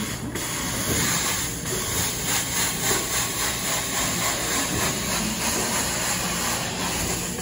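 Hot-water carpet extraction wand working over carpet tile: a steady hiss of vacuum suction and spray, dipping briefly a couple of times in the first two seconds as the wand strokes.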